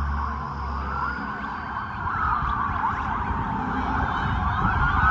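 Several police sirens wailing at once, their rising and falling tones overlapping and crossing, over a low rumble.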